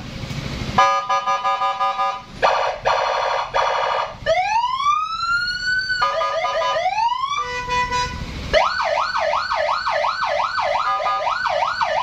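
Aftermarket electronic siren on a Yamaha X-Max scooter, switched through its tones. It gives rapid stuttering pulses at first, rising wails from about four seconds in, then a fast up-and-down warble of about two and a half sweeps a second for the last few seconds.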